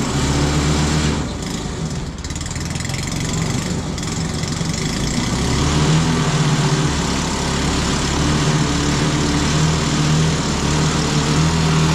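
An engine running steadily with a low hum, its level swelling and easing slightly, typical of a vehicle engine driving a winch that reels a raft back up.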